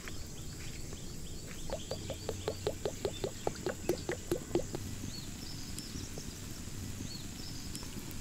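Vegetable oil glugging out of a plastic jug as it is poured into a large pan: a quick, even run of glugs, about five a second, for some three seconds, then stopping.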